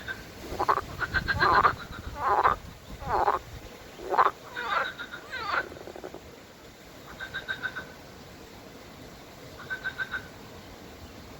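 Frogs croaking: a run of loud, pulsed croaks over the first half, then a quieter frog's short pulsed trill repeating every two to three seconds.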